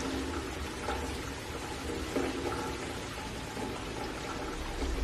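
Steady heavy rain with water pouring and running into a street storm drain.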